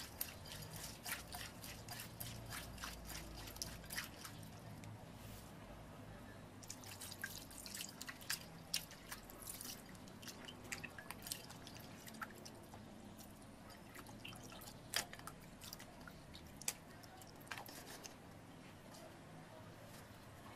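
Raw shell-on shrimp being washed by hand in a ceramic bowl of water: faint, irregular small splashes and drips, busiest in the middle stretch.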